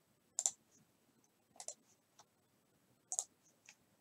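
Sharp, quiet clicks of a computer mouse: three paired clicks about a second and a half apart, with a couple of fainter single ticks between them.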